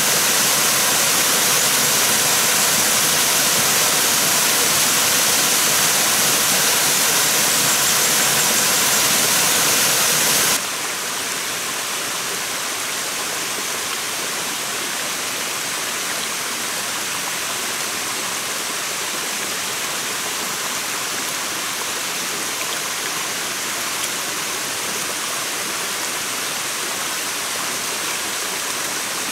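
Water rushing down a rocky cascading stream, a steady rush that steps down to a quieter level about ten seconds in.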